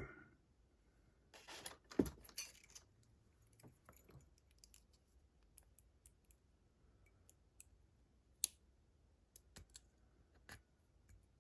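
Small metal tools and padlock parts being handled during disassembly of the lock: a short run of light metallic clicks and rattles a couple of seconds in, then sparse single clicks, one sharper near the end.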